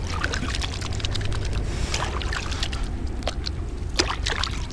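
Hands splashing and swishing in pond water, rinsing off catfish slime, in many small irregular splashes and drips.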